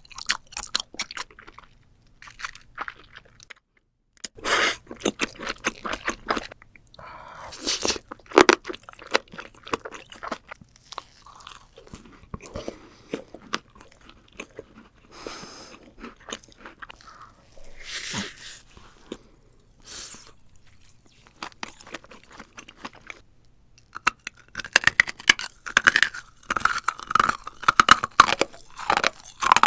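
Close-miked eating sounds: loud crunchy bites and chewing of crisp food, in quick irregular bursts, with a brief silent break about four seconds in and a dense run of crunching near the end.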